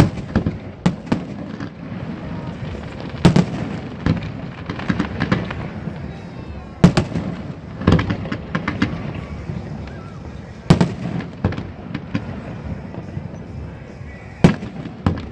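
Fireworks display: aerial shells bursting with sharp bangs at irregular intervals, the biggest every three to four seconds, with smaller pops and crackles between them.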